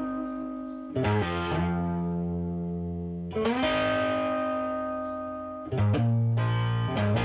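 Background music: sustained chords on a distorted electric guitar, struck about every two and a half seconds and left to ring and fade.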